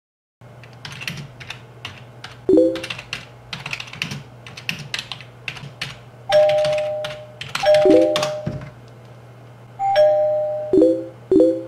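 Fast typing on a computer keyboard, with short electronic message-alert chimes coming in. The chimes are a two-note ding and a lower three-note ding, arriving every second or two in the second half. A low steady hum sits underneath.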